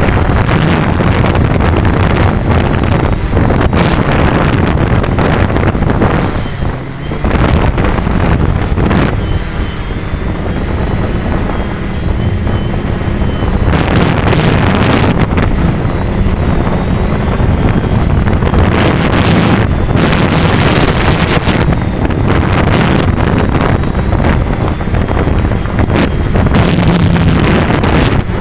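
Quadcopter's motors and propellers humming steadily, recorded by the camera on board, with wind rushing and buffeting the microphone in gusts.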